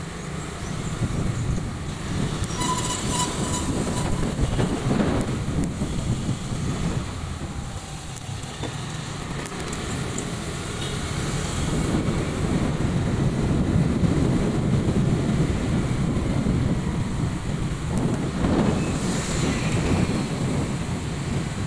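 Motor scooter riding along a city street, heard from the rider's seat: a steady low engine and road rumble with some wind on the microphone. About nineteen seconds in there is a brief louder rush of noise.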